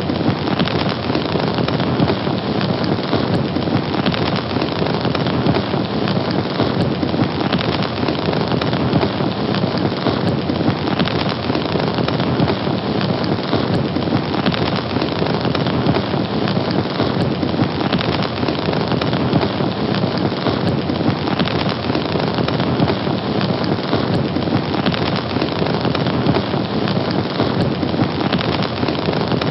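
Fire burning: a steady, dense noise of flames and crackling that goes on without a break.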